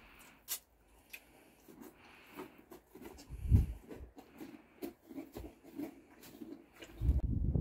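Shetland pony eating from a feed bucket hung on the stall wall: irregular sharp crunching clicks and rustles, with one dull knock about three and a half seconds in. A louder low rumble starts near the end.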